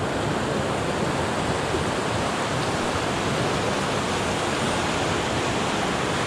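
Soča river rapids rushing steadily over a shallow rocky ledge, heard from just above the water.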